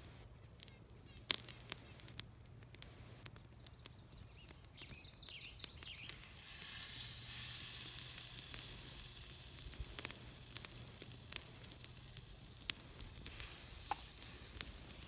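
Bacon frying in a pan over a small campfire: the sizzle comes up strongly about six seconds in and keeps going. Sharp clicks and crackles are scattered throughout, the loudest about a second in.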